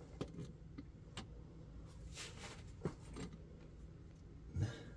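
A few light clinks and knocks of hand tools being handled and set down on a concrete floor, with a louder knock near the end.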